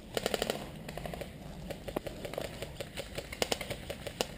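Airsoft rifle firing a short, rapid full-auto burst of sharp snapping shots, followed by a few scattered single clicks.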